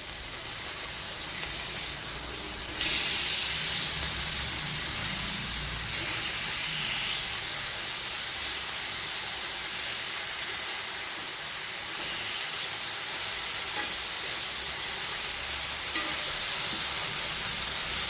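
Boneless chicken pieces sizzling in oil on a flat dosa griddle over a low flame, a steady frying hiss that gets louder about three seconds in.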